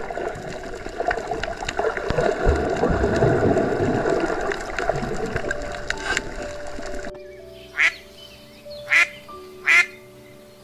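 Mallard ducks quacking: three loud, short quacks in the last few seconds, over background music. Before them, several seconds of dense crackling, rushing noise.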